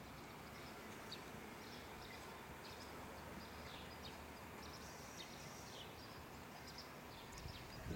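Faint outdoor ambience: a steady low hiss with scattered short, high bird chirps among the trees.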